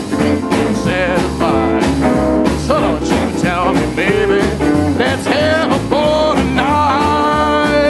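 Rockabilly band playing: a man singing with vibrato over electric guitar, double bass and drums on a steady beat, holding a long note near the end.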